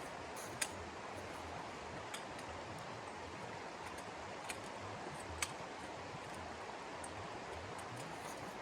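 Steady rushing noise with four sharp crackles, two of them louder, typical of a wood fire burning in a hot-tent stove.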